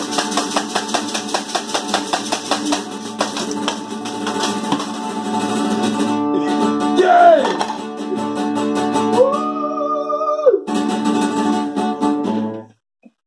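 Nylon-string acoustic guitar strummed fast and evenly, with hand percussion and men singing a short jingle. About six seconds in the strumming gives way to ringing chords under a long held sung note that drops off near ten seconds. The music cuts off suddenly just before the end.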